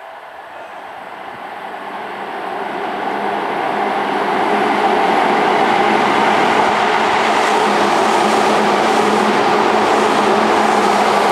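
Seibu 10000 series 'New Red Arrow' electric limited express train approaching and running through a station at speed without stopping. Its rumble of wheels on rails grows louder over the first four seconds or so, then holds loud and steady as the cars rush past.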